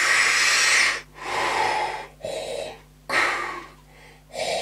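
A man's heavy, labored breathing: about five loud, noisy breaths in and out, with a Darth Vader-like sound. It is the breathlessness of a seriously ill man who needs oxygen.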